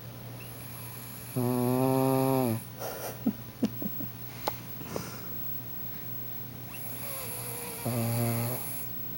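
A sleeping dog snoring: two loud, buzzing snores about six seconds apart, the first drawn out for over a second and dropping in pitch at its end, with a few short clicks in between.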